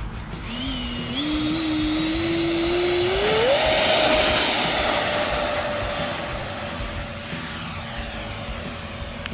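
The 70mm electric ducted fan of an E-flite F-16 model jet spooling up for a takeoff roll. Its whine rises in several steps as the throttle is advanced and reaches full power about three and a half seconds in. It then holds a steady high whine that sinks very slightly in pitch as the jet climbs out.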